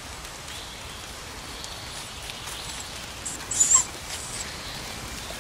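Slovensky Kopov puppy making a short, high-pitched sound right at the microphone a little over three seconds in, over a steady patter of light rain on the leaves.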